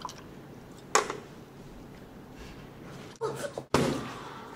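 A drink knocked over on a table: a sharp knock about a second in, a short gasp, then a second knock near the end as a paper cup tips onto its side.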